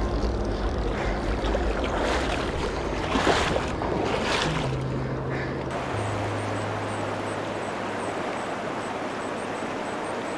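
River water rushing over a rocky bed, with background music's low bass notes running underneath.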